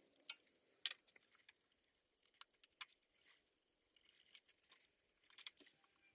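Scattered light metallic clinks and taps of hand tools on engine parts, at uneven spacing, the sharpest about a quarter of a second in.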